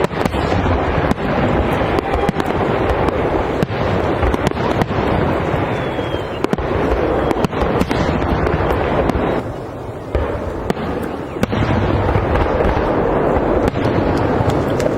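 Aerial fireworks barrage: many overlapping booms and sharp crackling reports in a dense, continuous volley, easing briefly about ten seconds in before building again.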